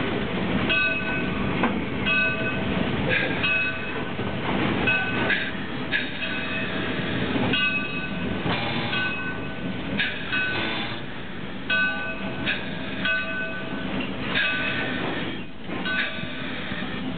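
A 2-6-2 steam locomotive under way, heard from inside its cab: a steady running noise with repeated short beats, several of them carrying a brief metallic ringing tone.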